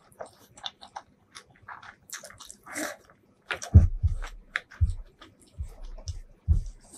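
Close-miked eating sounds: chewing and wet mouth clicks, with a few soft thuds and squishes as a hand kneads rice and curry on a wooden board.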